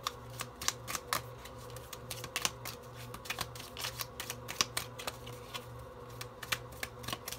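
Light, irregular clicks and taps, several a second, over a faint steady hum.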